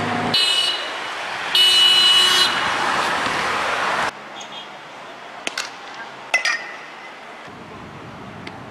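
Outdoor ambience with indistinct voices and a steady noise wash, broken twice by a high steady tone, the second longer and louder. The sound cuts at about four seconds to a quieter ambience with a few sharp clicks.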